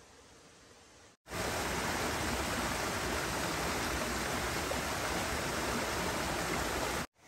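A small forest stream rushing over boulders in a steady, even torrent of water. It cuts in abruptly about a second in, after faint hiss, and cuts off just before the end.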